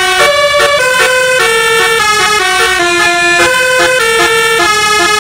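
Bus telolet horn, a multi-trumpet air horn, playing a loud, continuous melody. The notes step to a new pitch every quarter to half second, often sounding two or three at once.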